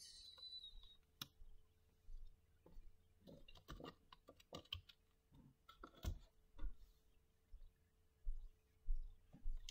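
Tarot and oracle cards being handled and laid on a table: an uneven run of soft clicks, taps and light slides, with a few duller thumps.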